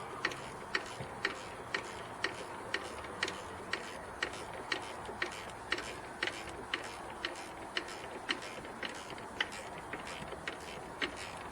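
Hand ratchet clicking steadily, about twice a second, as a self-locking nut is wrenched down by hand.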